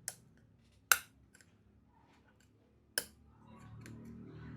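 Sharp metallic clicks: three loud ones, near the start, about a second in and about three seconds in, with a few fainter ticks. They come from a steel piece snapping onto the permanent magnets inside an electric scooter hub motor as each magnet's pull is tested, some of them weakened by welding heat.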